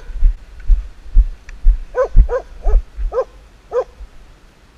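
A hunting dog barking five times in quick succession, about halfway through. Heavy footfalls thud low on the body-worn camera about twice a second before and under the barks.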